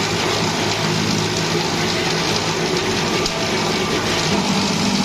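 Ice plant machinery running steadily: a constant hiss over a low hum, with no breaks or strokes.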